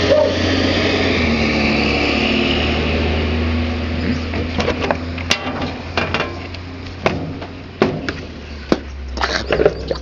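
A steady low mains hum, typical of the powered Hoover 200M washing machine's motor. From about halfway there is a string of sharp clicks and knocks from the camera being handled and moved.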